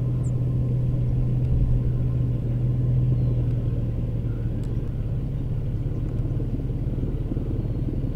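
Steady low engine rumble, with a low hum that fades out about three to four seconds in.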